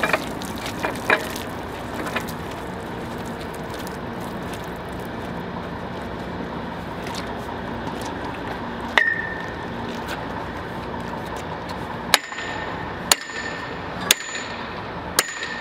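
Sledgehammer striking the lugs of a hammer union on a steel pipe fixture to tighten the connection: four sharp, ringing metal blows about a second apart near the end. Before them, a few lighter metal clanks as the pipe sections are handled and fitted together.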